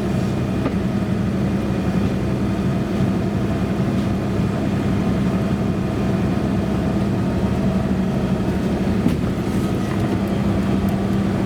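Warn PowerPlant electric winch pulling a downed tree under heavy load, a steady, unbroken mechanical drone.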